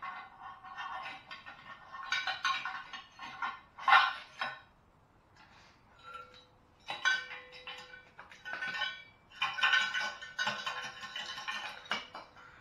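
Broken ceramic honeycomb from a gutted catalytic converter rattling and clinking against the steel shell and pipe as the converter is shaken out, pieces spilling loose. A sharp loud knock about four seconds in, and a brief lull before the clatter picks up again.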